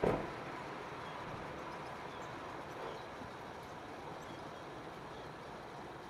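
Steady outdoor background noise with a thump right at the start and a few faint, short, high chirps from small birds scattered through it.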